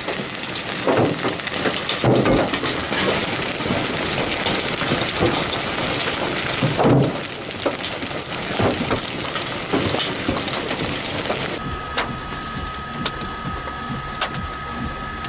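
Hail and rain pelting a car's roof and windshield: a dense, steady clatter with heavy thumps from large hailstones every second or two. About three and a half seconds before the end it gives way to a quieter hiss with a steady high tone and a few sharp clicks.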